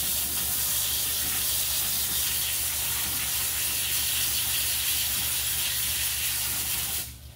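Pistol-grip garden hose nozzle spraying a steady hissing jet of water onto aquarium filter media, rinsing a filter sponge and carbon bags; the spray shuts off near the end.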